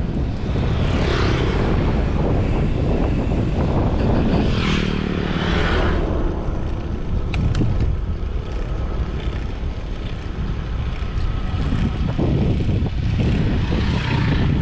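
Wind rushing and buffeting over the microphone of a camera riding on a moving road bike, with tyre noise on asphalt, swelling in gusts; a couple of brief clicks about seven and a half seconds in.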